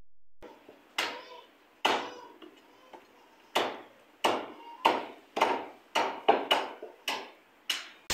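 Cleavers chopping goat meat and bone on wooden chopping blocks: about a dozen sharp, separate chops at an uneven pace, coming faster, about two a second, in the second half.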